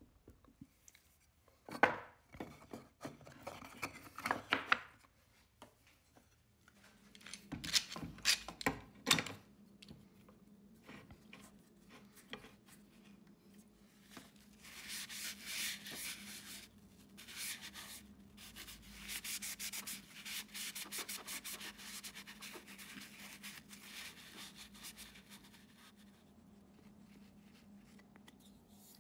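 Steel bar clamps being fitted and tightened on a walnut glue-up. Two clusters of sharp clacks and knocks come as the clamps are set, then a long stretch of scraping, rasping rubbing.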